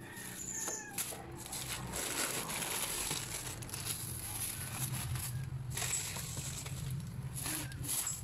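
Thin plastic carrier bags rustling and crinkling as a hand moves goods around inside them.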